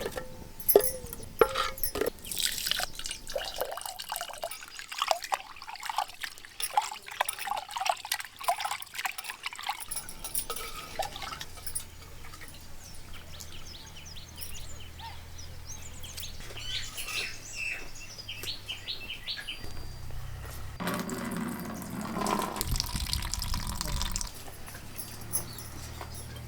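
Water being poured and splashed in cooking vessels, with clinks and knocks in the first half. A steady low hum comes in about halfway through.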